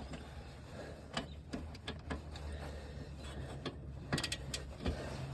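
Scattered light clicks and taps of a 3/8-inch torque wrench and socket being worked on a wheel bearing's mounting bolts, over a low steady hum.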